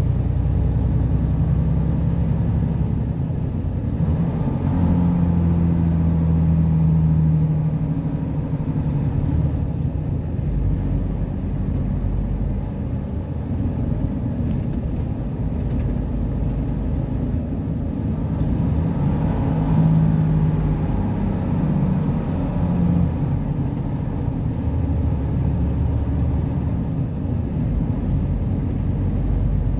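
Vehicle engine and tyre drone heard from inside the cab while driving at road speed, a steady low rumble whose engine hum swells twice.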